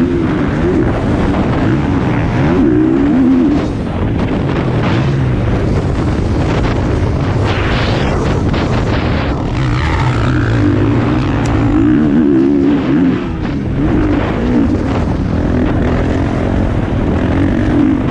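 Motocross bike engine heard from the rider's own onboard camera, revving up and down under hard throttle round a dirt track, with wind noise on the microphone. The throttle backs off briefly about three and a half seconds in and again about two-thirds of the way through.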